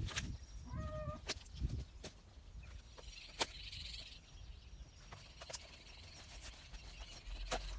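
Dry firewood branches knocking together as they are picked up and carried, with about six sharp knocks, the sharpest nearly halfway through, and footsteps in grass. A short animal call sounds about a second in.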